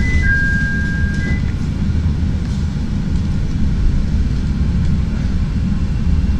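CTA Red Line rapid-transit train pulling out of a station on elevated track, heard from inside the car: a steady low rumble of wheels on rails. Over it, a high electric whine steps between two pitches and stops about a second and a half in.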